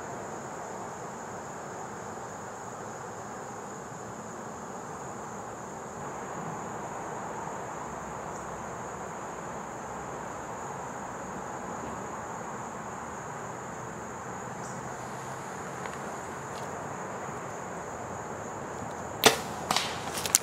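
A steady high insect drone over a quiet woodland background, then about nineteen seconds in the single sharp crack of a bow shot at a whitetail buck, followed by a few quick snaps and rustles of the deer bolting through the leaves.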